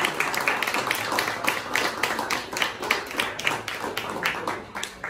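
A small group applauding, many overlapping hand claps that thin out and fade near the end.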